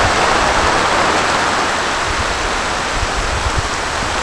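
Heavy monsoon rain falling steadily, with water pouring off the edge of a roof.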